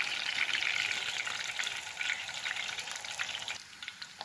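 Curry leaves and green chillies sizzling and crackling in hot coconut oil in a pan. The sizzle drops off noticeably about three and a half seconds in.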